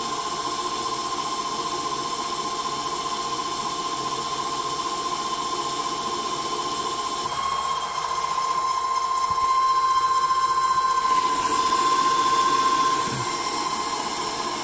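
Small CNC metal lathe running a programmed turning cycle: the spindle runs steadily with a constant whine. About seven seconds in, the cutter takes a pass on the spinning bar and the sound grows louder, the whine brighter and wavering, for about five seconds before it drops back to the plain running sound.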